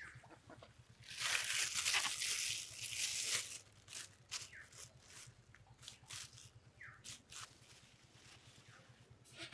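Thin clear plastic bag crinkling and rustling as it is handled. The rustle is loudest for about two seconds starting a second in, then breaks into short scattered crackles.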